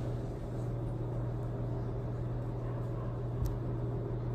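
A steady low hum, with faint rustling of clothes being handled and a light click about three and a half seconds in.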